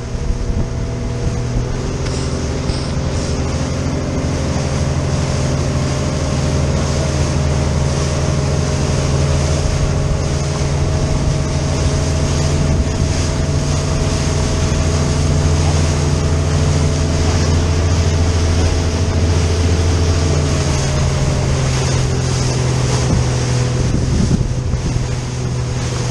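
A RIB's engine running steadily at speed, with water rushing and churning past the hull. The engine note steps up slightly about two seconds in and eases down a little around twenty seconds in.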